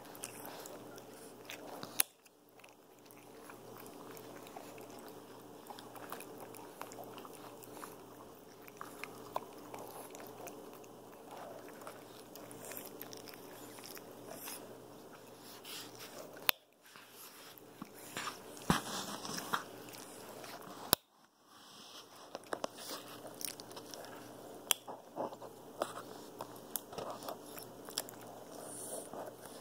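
Capuchin monkey handling and biting a fluffy toy right at the microphone: close rustling and crackling, broken by many sharp clicks and a few louder knocks.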